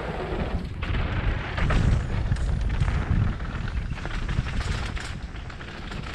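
Mountain bike riding fast down a dirt trail, heard from a helmet camera: wind buffeting the microphone with a steady low rumble, and the bike clattering and knocking over bumps.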